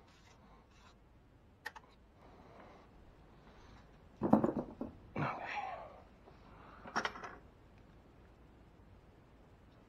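Parts and tools being handled on an engine under repair: a sharp click, then a few knocks and rattles, the loudest about four seconds in, with more about five and seven seconds in.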